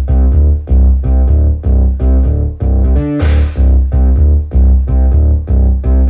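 Bose L1 Pro32 column speaker with Sub2 subwoofer playing a self-made GarageBand track with heavy bass in a steady beat, very loud, close to the system's limit before clipping. A crash sounds about three seconds in.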